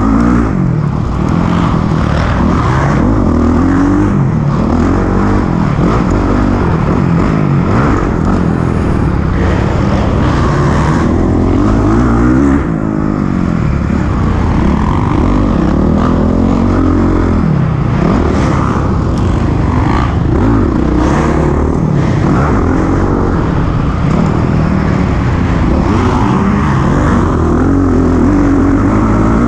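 Honda CRF450R's single-cylinder four-stroke engine revving up and down over and over, heard close from on board as the bike is ridden around a dirt motocross track.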